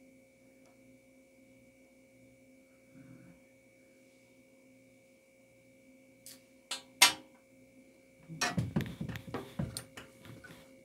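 Faint steady electrical hum, then a few sharp clicks about six to seven seconds in, followed by a run of knocks and rustling as scissors and a clear plastic ruler are handled and set down on a glass-topped table and the fleece is shifted.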